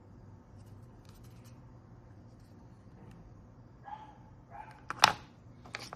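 Handling of the repaired clip-on guitar tuner: two short sounds about four seconds in, then two sharp clicks near the end, the first of them much the loudest.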